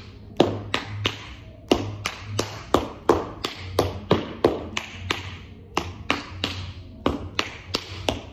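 Tap shoes striking a studio floor in a fast tap combination of heel drops and toe and ball taps. The sharp metallic clicks come in quick, uneven rhythmic groups, about three to four a second.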